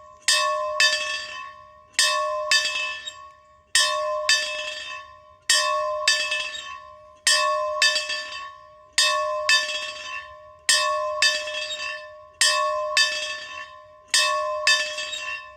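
A bell ringing in steady strokes. The strikes come in close pairs, about half a second apart, with a pair roughly every second and three-quarters, and each stroke rings out and fades before the next. The tone is clear and crisp.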